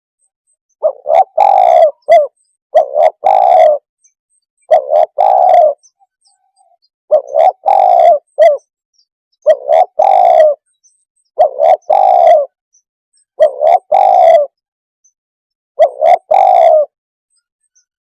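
Spotted dove cooing loudly: a short coo followed by a longer rolling coo, the phrase repeated eight times about every two seconds.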